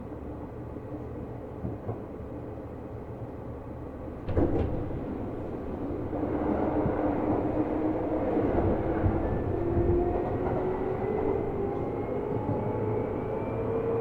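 Seibu New 2000 series electric train heard from inside the car: a steady low rumble, a sharp thud about four seconds in, then the traction motors start up and their whine climbs steadily in pitch as the train pulls away.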